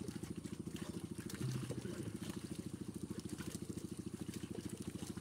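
A small engine running steadily with an even, rapid chugging of about a dozen beats a second, with faint splashes of water over it.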